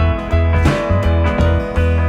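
Background music: a country-style track led by guitar, with a steady bass beat.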